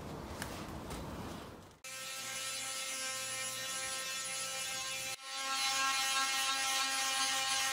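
Steady background hiss, then a cordless drill's motor running at an even speed on a wooden chair frame for several seconds, with one short break about halfway and louder after it.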